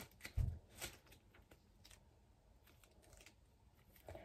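Pink slime being stretched and squeezed between the hands: a few soft sticky clicks in the first second and a dull thump about half a second in, then only faint crackle.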